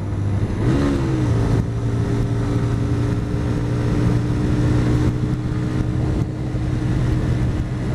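Honda CBR125R's single-cylinder four-stroke engine running at a steady road speed under a haze of riding noise. Its note wavers briefly about a second in, then holds steady.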